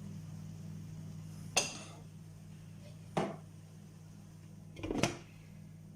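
A cooking utensil scraping and knocking against a dish three times, about a second and a half apart, over a steady low hum.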